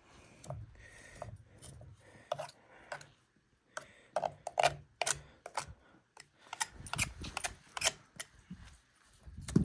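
A small knife scraping and cutting jelly-soft tissue off a boiled elk skull: short, irregular scrapes and clicks of the blade on bone, coming thicker and louder from about halfway through.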